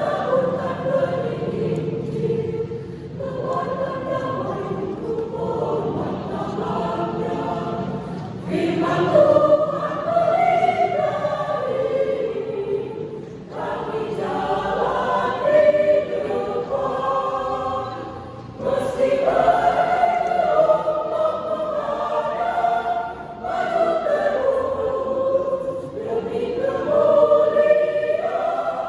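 Church choir singing in several voices, in phrases of about five seconds with brief breaks for breath between them.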